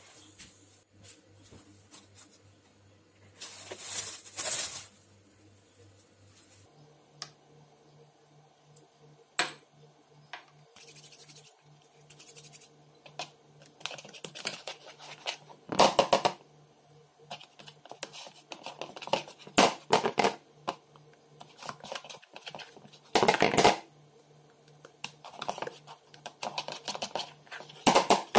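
A towel rustling about four seconds in, then hands stretching and folding oiled, sticky focaccia dough in a mixing bowl: irregular short bursts of wet handling and scraping noise.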